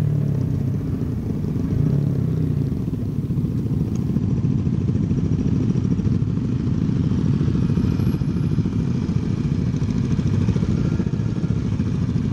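Motorcycle engine running at riding speed, largely buried under heavy wind rumble on the microphone.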